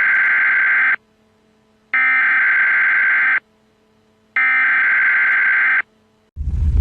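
Three identical electronic buzzer tones, each about a second and a half long with about a second of silence between, like an alert or alarm signal. Just before the end a low rumbling noise starts.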